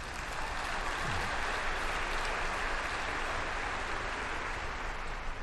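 Large audience applauding, a steady, even clapping that holds throughout.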